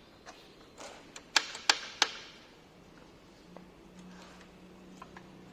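Sharp clicks and clacks from handling the Makita LS1019L miter saw's locks and table, about six in the first two seconds, then quiet with a faint low hum.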